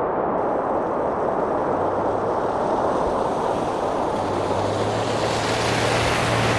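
Steady rushing of blizzard wind. A low engine hum from a vehicle joins about two seconds in and grows louder past the halfway point.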